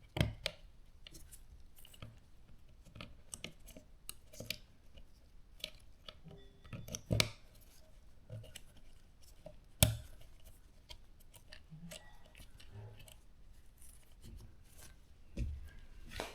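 Scattered light clicks, snaps and knocks of hand work on dishwasher parts, with two louder sharp clicks, one about seven seconds in and one about ten seconds in.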